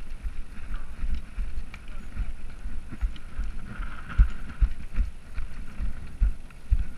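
Mountain bike rolling down a rough, rocky dirt trail, heard from a mounted action camera: wind rushing on the microphone with frequent irregular low knocks from the bumps.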